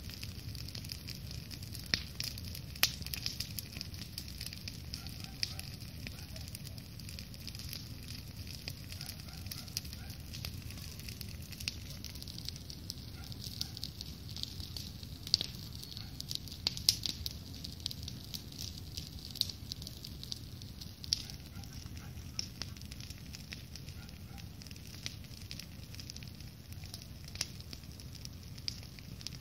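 Large wood campfire burning, crackling with irregular sharp pops of varying loudness over a low steady rumble.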